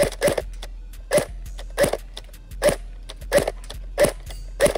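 Airsoft gun firing single shots in a steady series, about seven sharp cracks roughly 0.7 s apart, each with a short ring.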